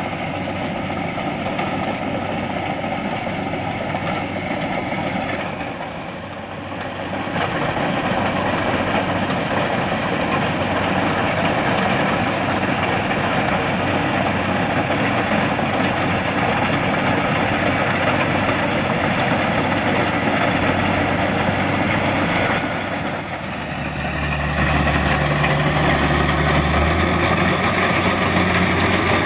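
Kubota DC-70 Plus combine harvester's diesel engine running steadily. The sound dips briefly about six seconds in and again near the end, each time coming back louder.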